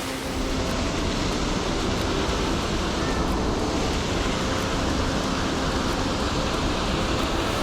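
Waterfall and creek water rushing, a steady, even noise.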